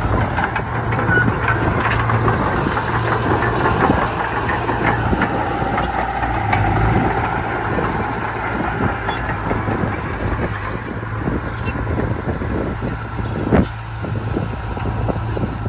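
Heavy diesel earthmoving machinery running steadily, with a constant low engine drone and many clanks and rattles over it. A single sharp knock comes about thirteen and a half seconds in.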